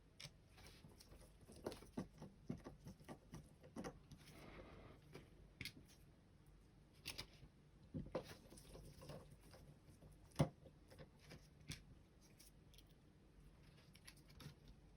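Faint scattered clicks and taps of small plastic computer-mouse parts being handled and fitted back together, with a soft rustle around four to five seconds in and one sharper click about ten seconds in.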